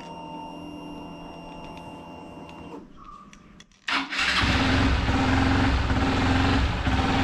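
Hero Xpulse 200 4V's single-cylinder engine, fitted with a fresh BMC air filter: a faint steady whine for about three seconds, then the engine is started on the electric starter about four seconds in and settles into a steady idle.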